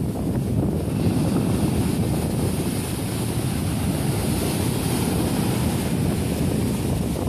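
Heavy surf breaking and washing up a sandy beach, a steady rushing hiss that swells about a second in, with wind buffeting the microphone.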